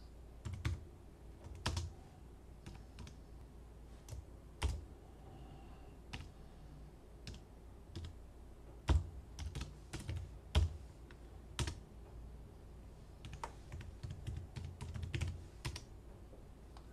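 Typing on a computer keyboard: single keystrokes and short runs of keys at an uneven pace, with a quicker run of keys near the end.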